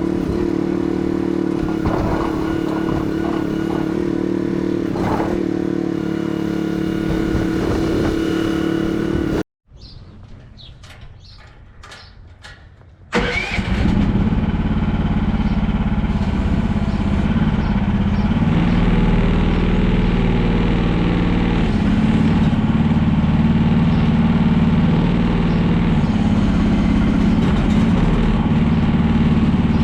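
An engine running steadily. After a break with a quieter stretch, an engine starts up about thirteen seconds in and runs on, lower in pitch than the first.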